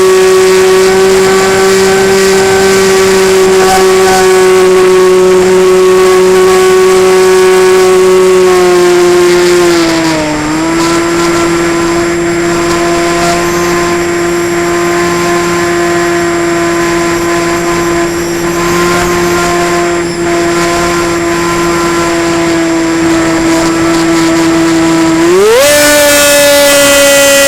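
Motor and propeller of a model Cessna 185 in flight, heard from the onboard camera: a steady drone. Its pitch sags and dips briefly about ten seconds in, then rises sharply near the end as the throttle is opened.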